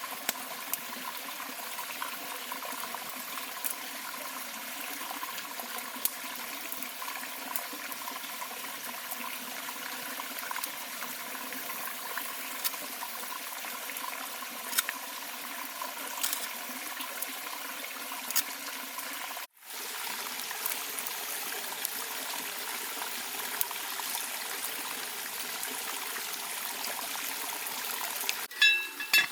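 Small stream running with a steady trickling flow and scattered small clicks. The sound drops out for a moment about two-thirds through, and there is a short sharp sound near the end.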